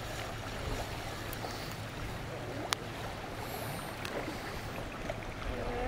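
Steady rush of a fast-flowing river around the wader, with a single sharp click about halfway through.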